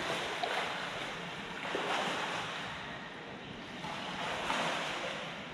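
Pool water sloshing and lapping close to the microphone at the water's surface, swelling and easing every couple of seconds as a swimmer's strokes stir the water.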